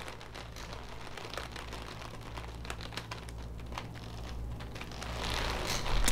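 Close-miked eating sounds of pudding or jello being eaten: many small wet mouth clicks and smacks, quiet and irregular.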